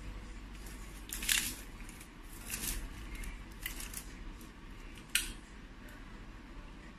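A few light clicks and rustles of small objects being handled, over a low steady hum. The loudest is a rustling snap about a second in, and a sharp click comes about five seconds in.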